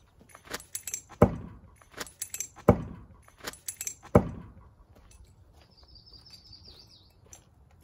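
Three heavy thuds about a second and a half apart, each with a short deep ring, with light clinks and rattles between them. A short high chirp, like a bird, comes near the end.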